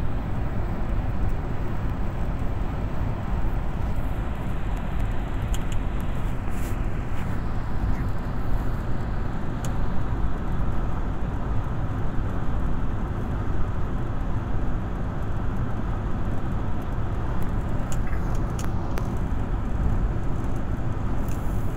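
Steady low road rumble of a car driving along a motorway, heard from inside the cabin: tyre and engine noise.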